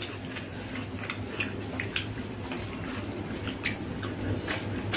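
Wet clicks and smacks of hand-eating rice and egg omelette curry: fingers squishing rice into the curry on the plates, and chewing mouths. The clicks come irregularly, several a second, over a low steady hum.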